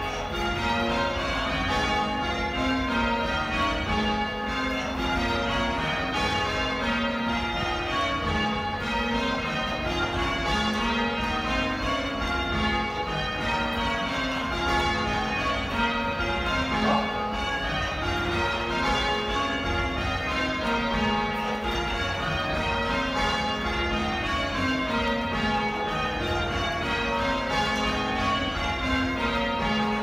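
Church bells change ringing in a quarter peal: a continuous, even stream of bell strokes, the bells sounding one after another in shifting order.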